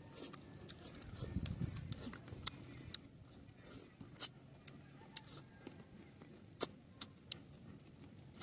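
Close-up mukbang eating sounds: wet lip smacks and sharp mouth clicks as a man chews a mouthful of curry and rice and sucks the curry off his fingers, coming irregularly a few times a second.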